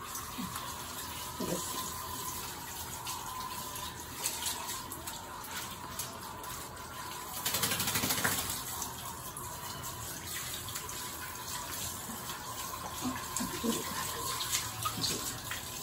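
Handheld shower head spraying water onto a dog's wet coat on a tiled bathroom floor: a steady hiss of running water with a faint steady whistle, louder for a second or two about halfway through.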